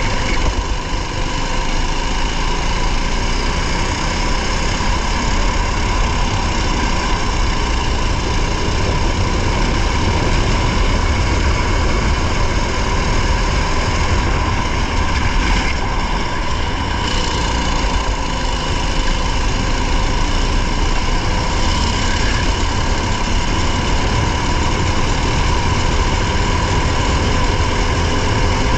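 A race car's engine running continuously under way, heard from on board, with a dense, steady rumble and faint, slowly rising engine tones.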